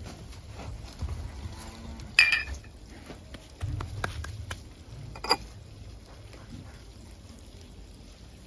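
Kitchenware clinking: two sharp, ringing clinks about three seconds apart, the first the louder, with lighter taps and handling between them over a low rumble.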